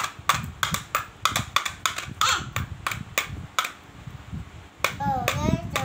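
Sharp clicks and pops, about three or four a second, from hands squeezing and slapping a soft blob of slime. They pause for about a second near the end, when a child's high voice comes in.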